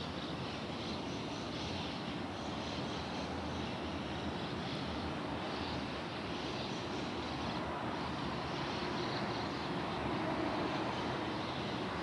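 Steady rumbling drone of a distant aircraft, growing slightly louder in the last few seconds.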